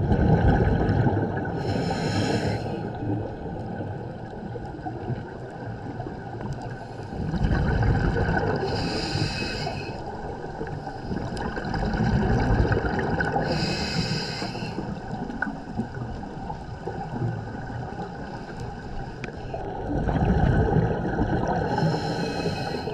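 Scuba diver breathing through a regulator underwater, four breaths about five to seven seconds apart. Each breath is a low rumble of exhaled bubbles followed by the hissing whistle of an inhalation.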